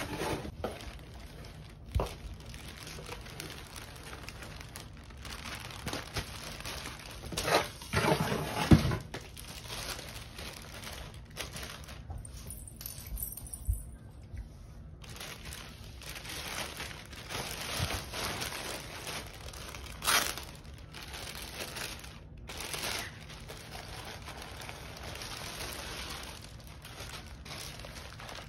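Plastic packaging crinkling and rustling as a handbag in a clear plastic bag and white wrapping is handled, lifted out of a cardboard box and pulled open. A few sharp knocks stand out, the loudest about nine seconds in.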